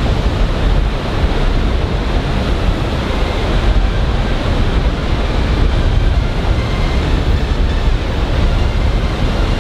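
Steady loud rumbling noise of wind buffeting the microphone, with the drone of a twin-turboprop aircraft flying past mixed in.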